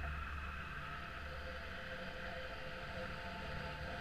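Wind buffeting an action camera on a crane-lifted steel beam: a steady low rumble with hiss above it and a faint steady whine of several held tones.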